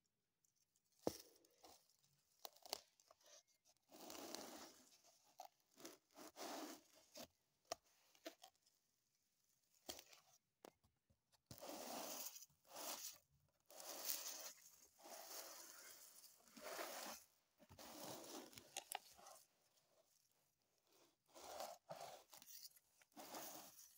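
Steel milling chips rustling and crunching on a sheet of cardboard as a strong magnet is moved beneath them, making them stand up and shift. The sound comes in irregular gritty bursts with scattered sharp clicks, one louder click about a second in.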